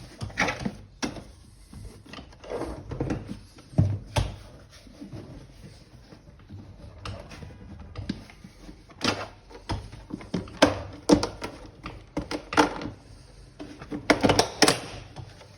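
Hard plastic parts of a vacuum cleaner being handled and pressed together: irregular knocks, clicks and scrapes, with the loudest clusters near the middle and near the end.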